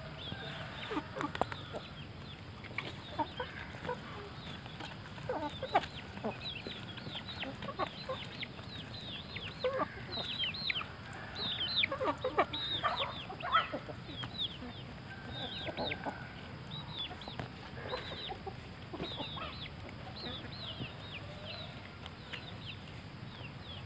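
Chickens clucking over feed, with many short, high chirps falling in pitch scattered throughout.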